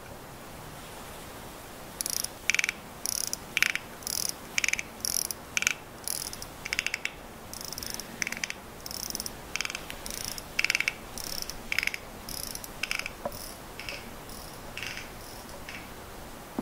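A key winding the mainspring of a hand-made tortoise automaton. The click and ratchet wheel give short bursts of fine ratchet clicking, one per turn of the key. The bursts start about two seconds in and grow fainter near the end.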